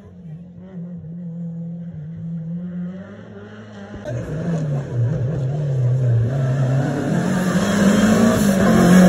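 Rally car engines on a stage. First a steady engine note from a car some way off. Then, after a cut about four seconds in, another rally car approaching, its engine rising and falling through gear changes and growing louder toward the end.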